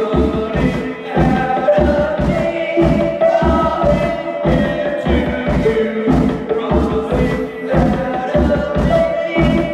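Live band music with singing over a steady, evenly repeating drum beat.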